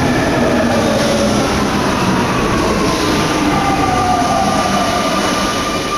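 Paris Métro Line 14 MP89CA rubber-tyred train running, a steady rushing noise with several whining tones that slowly fall in pitch.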